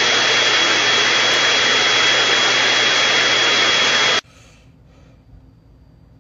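Loud, steady rushing noise with a constant high whine through it, cutting off suddenly about four seconds in.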